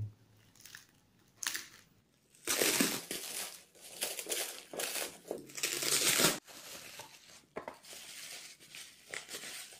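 Plastic courier bag being torn open by hand and crinkled, loudest for about four seconds in the middle, followed by lighter crinkling of plastic bubble wrap being handled.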